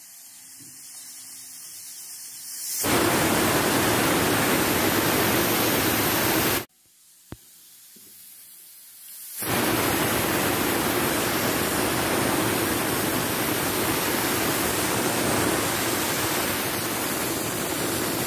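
Prestige Deluxe pressure cooker whistling: steam jets out under the weight valve in two long whistles, each building up from a softer rising hiss, the first stopping abruptly about seven seconds in. The second is the final whistle, the sixth, that marks the end of the pressure cooking.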